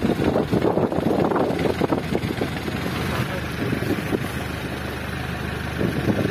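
Fishing boat's engine running with a steady low hum.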